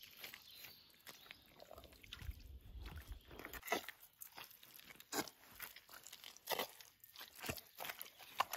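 Sneakers squelching and sucking in thick wet mud as feet press down and pull out, in irregular wet squelches every half second or so, with a brief low rumble about two seconds in.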